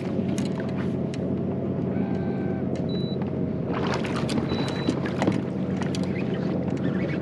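Electric trolling motor of an Old Town AutoPilot 136 fishing kayak humming steadily. Scattered sharp clicks sound over it.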